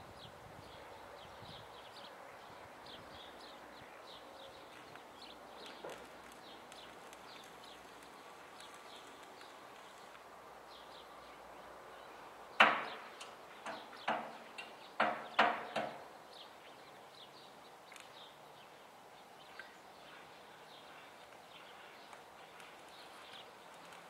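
Quiet outdoor background with faint high chirps. About halfway through, a quick run of six sharp knocks comes over about three seconds, the first one the loudest.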